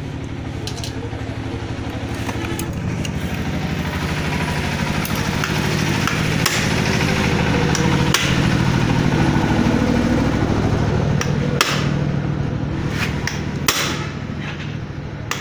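Sharp metallic clinks and taps of hand tools on a motorcycle's exposed clutch assembly, scattered a few seconds apart. Under them, a steady engine hum runs throughout, growing louder toward the middle and easing off near the end.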